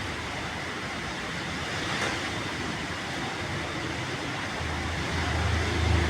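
Strong wind blowing steadily, an even rushing noise. A low rumble builds and grows louder over the last second and a half.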